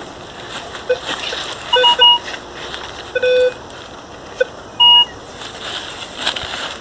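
Minelab Vanquish 440 metal detector giving a string of short beeps of differing pitch as its coil sweeps over metal targets in the ground; most are low tones, and a higher beep comes about five seconds in.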